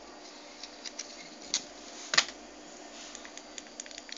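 Light clicks and taps of a small battery and device being handled by hand, with a sharper click a little past two seconds in and a quick run of light ticks, about five a second, near the end.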